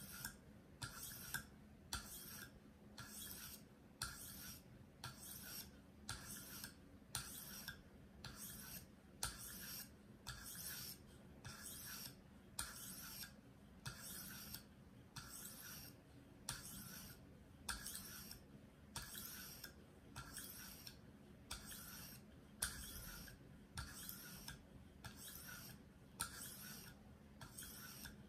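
600-grit stone on a KME guided sharpener stroked along the edge of a 4-inch Henckels paring knife, a faint, steady rasp repeating evenly about one and a half times a second.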